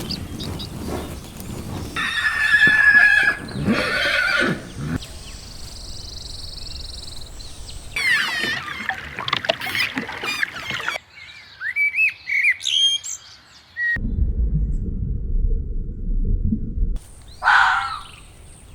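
A string of short animal recordings spliced one after another with abrupt cuts: pitched animal calls, then a stretch of bird chirping and twittering, then a low rumbling stretch and one more brief call near the end.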